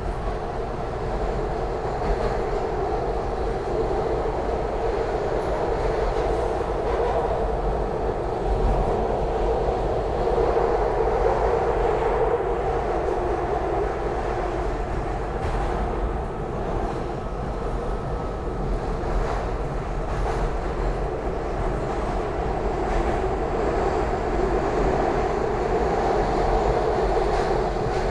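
SEPTA Market-Frankford Line M-4 subway-elevated car heard from inside while running at speed between stations: a steady wheel-on-rail running noise with occasional faint clicks over rail joints.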